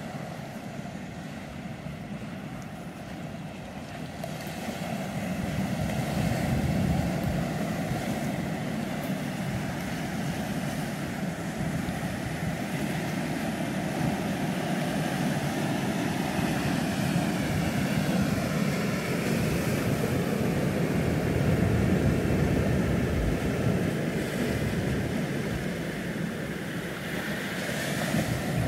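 Ocean surf breaking and washing up a sandy beach, with wind on the microphone. A faint drone falls in pitch around the middle.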